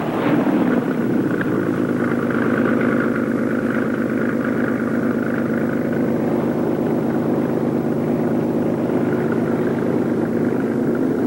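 Cabin cruiser's inboard engine running steadily under way.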